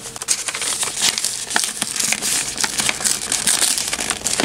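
Yellow paper gift wrapping around a cardboard snack box being handled and unfolded by hand: irregular crinkling and rustling of stiff paper.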